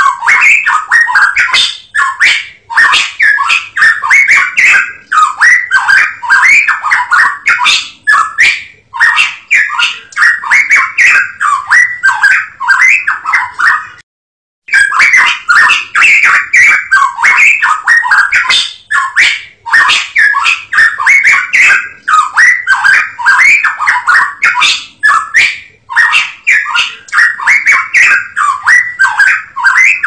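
Cucak emas Papua songbird singing a fast, continuous chattering song of rapid repeated notes, with a brief break about fourteen seconds in.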